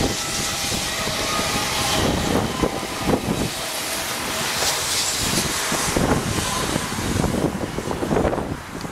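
TER regional train passing at reduced speed, its wheels running over the rails, with gusts of mistral wind buffeting the microphone.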